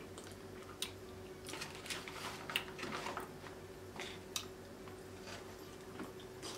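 Close-up mouth sounds of eating sauce-covered seafood: wet chewing, smacking and sticky clicks that come and go, busiest in the first half, over a faint steady hum.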